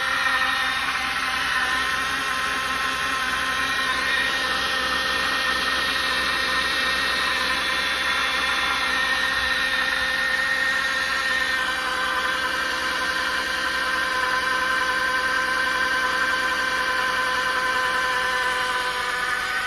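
BMW N52 3.0-litre inline-six idling with a steady high whine over the engine noise. This is the freshly swapped-in engine making the odd noise, running very rough and smoking from the exhaust manifold area.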